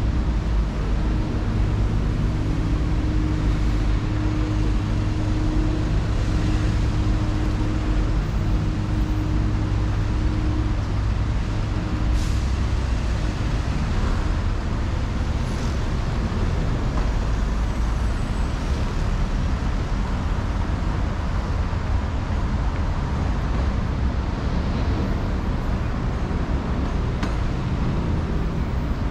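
Traffic on a busy city road: a steady rumble of vehicle engines, with a brief hiss partway through.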